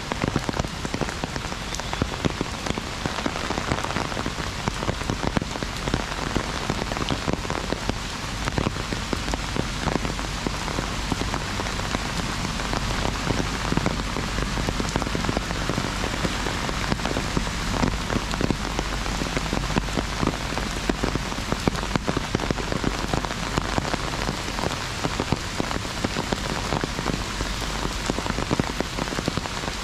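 Heavy rain hitting an umbrella held overhead: a steady hiss full of dense, sharp drop hits.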